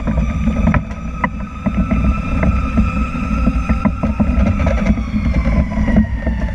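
Pierce tiller ladder truck running on an emergency response, heard from the rear tiller cab: a heavy low rumble of engine, road and wind, with a siren wail that holds high and then falls away about five seconds in. Short rattles and clicks from the cab come through now and then.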